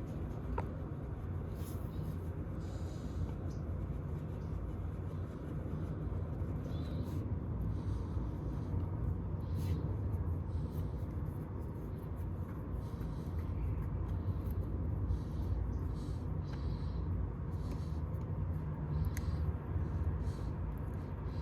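Sherline/Craftsman micro lathe (model 524-2142) running steadily, its small motor giving an even low hum, with scattered light ticks and scrapes over it.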